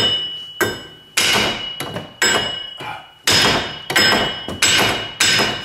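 Hand hammer beating on a Ford Windstar's front wheel hub bearing, metal on metal: about nine hard blows, roughly two a second with a short pause midway, each leaving a brief metallic ring. The hub bearing is rusted fast on the spindle and not budging.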